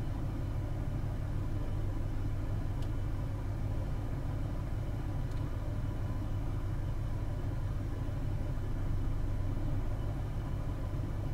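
Car engine idling steadily, heard from inside the cabin as a low, even hum. The alternator is charging the battery.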